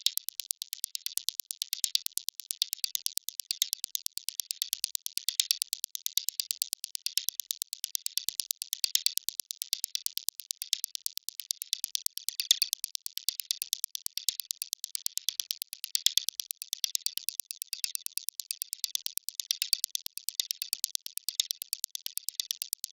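Electronic percussion loop filtered to its top end: a dense, fast stream of ticks with no bass, playing on in an even pattern.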